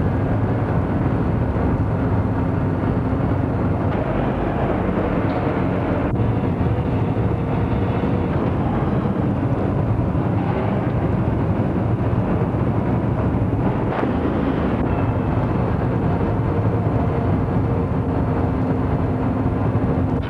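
Loud, steady factory machinery noise with a constant hum, from the presses that mould and vulcanize solid rubber tyres.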